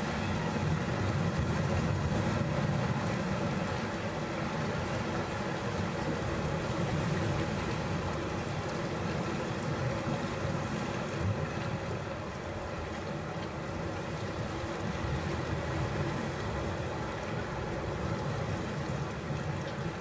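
Sea waves washing in over the shore rocks: a steady low rumble of surf that swells and eases, fuller in the first few seconds and a little softer after the middle.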